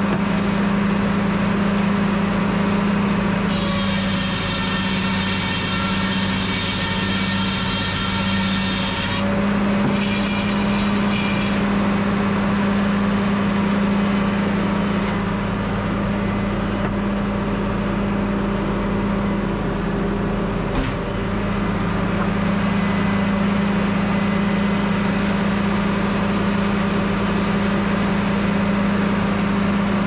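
Belt-driven circular sawmill running with a steady hum, its large head saw cutting a log with a high singing whine from about four to nine seconds in and briefly again around ten seconds. A single sharp knock a little past the middle.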